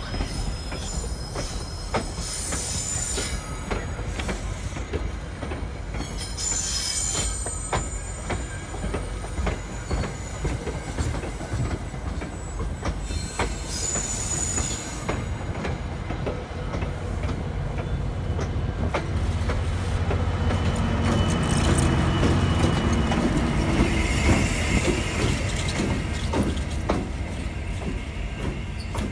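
CapeFLYER passenger coaches rolling past close by. Wheels clack over the rail joints, with high-pitched wheel squeals three times in the first half, and the rolling rumble grows louder and deeper in the second half.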